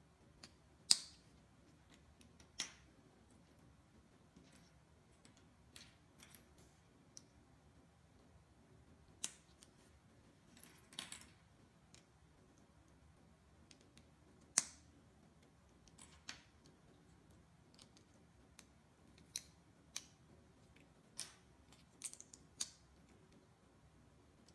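Plastic building bricks being clicked and snapped together by hand: a scattered series of short, sharp clicks, a few seconds apart at times and in quick clusters at others, the loudest about a second in and about halfway through.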